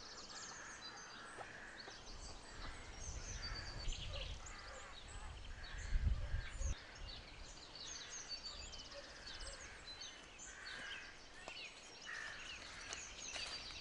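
Small birds chirping and singing, many short calls throughout, with a low rumble on the microphone around the middle, strongest about six seconds in.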